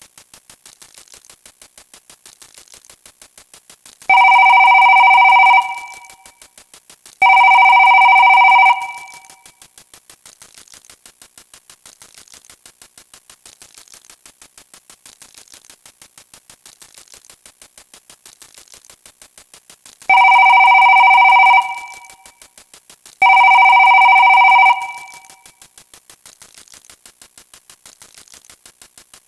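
Telephone ringing sound effect: two rings a few seconds apart, then another two rings later on, over a steady rapid ticking.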